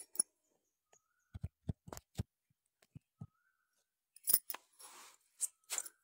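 Handling noise of a phone held close: a few dull knocks and bumps, then cloth rustling with light, sharp clicks near the end.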